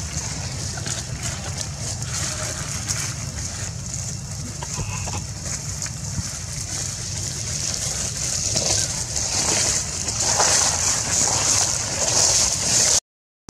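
Outdoor ambience: a steady high-pitched drone over a low rumble, with light rustling that grows a little louder in the second half. The sound cuts out for a moment near the end.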